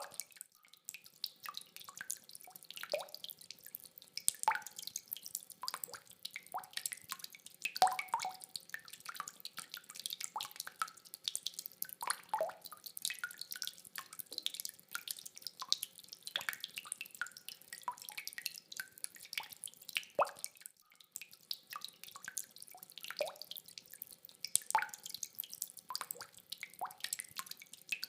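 Rainwater dripping: irregular drops, several a second, some landing with a short ringing plop.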